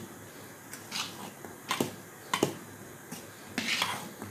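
Metal spoon stirring thick, risen idli batter in a metal bowl: wet squelching with a few sharp clicks of the spoon against the bowl, and a longer scraping swish near the end.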